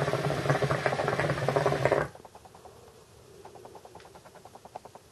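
Air moving through a Khalil Mamoon Beast hookah's water-filled vase with a loud, rapid bubbling rattle that stops abruptly about two seconds in, followed by faint quick ticking.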